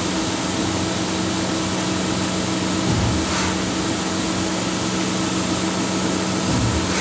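CNC lathe running an automatic G78 thread-cutting cycle on an M20 thread, taking 0.3 mm passes: a steady machine hum with a brief surge that comes back about every three and a half seconds as each pass repeats.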